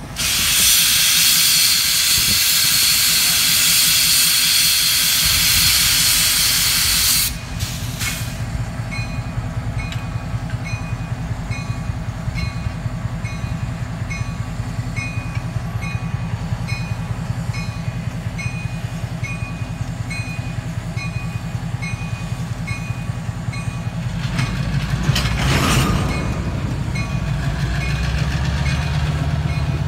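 Diesel switcher locomotive idling with a loud hiss of released air for about the first seven seconds. Then a railroad crossing bell dings steadily, about twice a second, over the engine's low rumble. Around 25 seconds in, a shorter hiss of air comes, and the engine grows louder as the locomotive starts to move.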